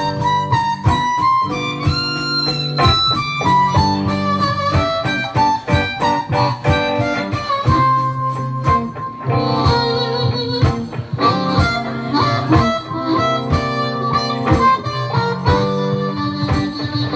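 Slow blues played on amplified harmonica, cupped against a microphone, together with electric guitar.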